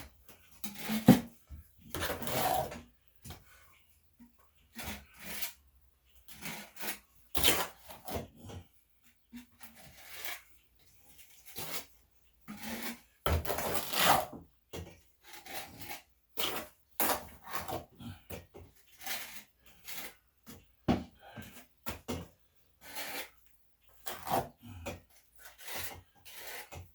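Wet concrete mix being scooped and scraped into the tube of a mortar gun: a run of short, irregular scraping strokes with small knocks between them.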